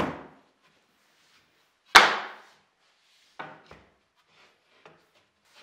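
Plywood panels and a solid-wood board being set down and shifted on a wooden workbench top. A knock comes first, then a loud wooden clap about two seconds in, then a few lighter knocks and a small tap.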